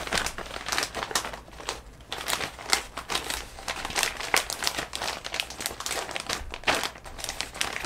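Clear plastic packaging bag crinkling and rustling in the hands as it is opened and the folded fabric bag inside is pulled out, in an irregular run of crackles.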